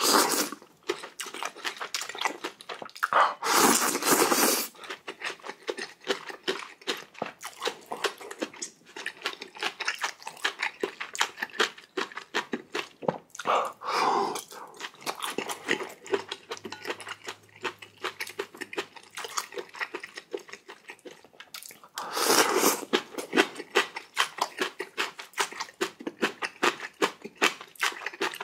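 Close-miked eating: chewing and crunching with many quick wet clicks, and two louder stretches about four seconds in and about twenty-two seconds in.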